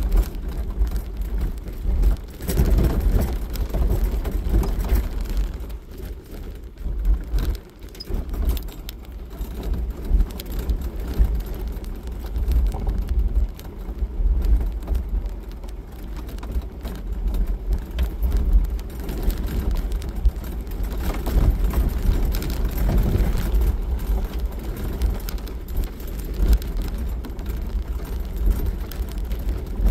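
Jeep Wrangler driving on a gravel road, heard from inside the cab: a low, uneven engine and tyre rumble with gravel crunching under the tyres and small rattles throughout.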